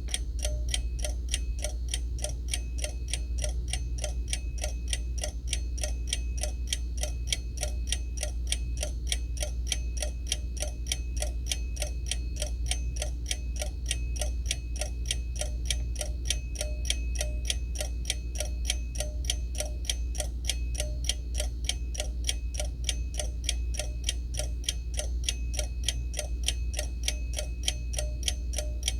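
Seiko Corona wind-up mechanical alarm clock ticking, quick and perfectly even.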